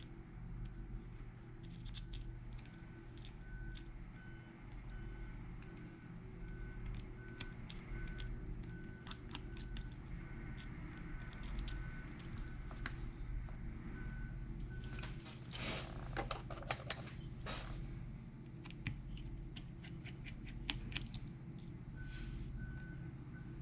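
Small clicks and taps of tools and parts being handled on a repair bench, over a steady low electrical hum. A faint beep repeats about twice a second for long stretches, and a few louder scraping rustles come a little past the middle.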